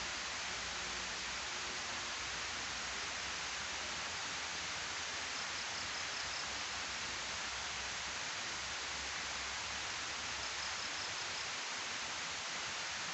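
Water pouring down a steep stone weir spillway into the pool below: a steady, even rush of falling, splashing water.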